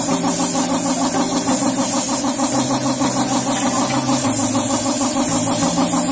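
Air spray paint gun hissing steadily as it sprays black paint onto a car bumper, over a motor running with a fast, even pulsing, typical of the air compressor that feeds the gun.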